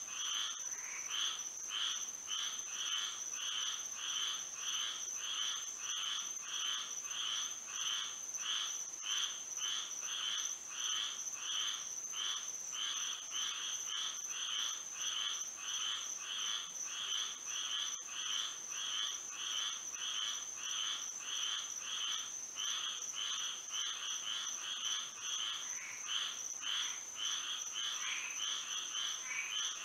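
A chorus of frogs calling at night, their calls repeating at about two a second, over a steady high-pitched tone.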